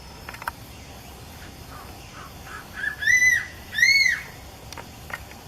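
Crowned eagle calling: a few faint short notes lead into two loud whistled calls about a second apart, each rising and then falling in pitch.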